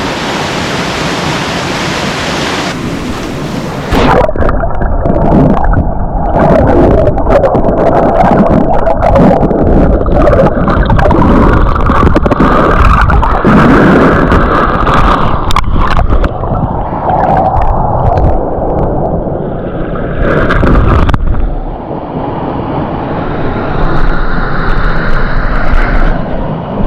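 Creek water gurgling and churning around a submerged microphone, loud and muffled, after about four seconds of steady rushing stream water; the muffled sound eases a little after about 21 seconds.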